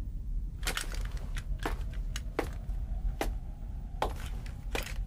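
Running footsteps on a stone floor, evenly paced at about one stride every three-quarters of a second, over a low steady rumble.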